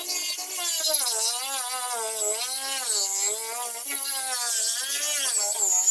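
Electric power tool cutting into the boat's stringers, its motor whine dipping and rising in pitch as it loads up and frees in the cut.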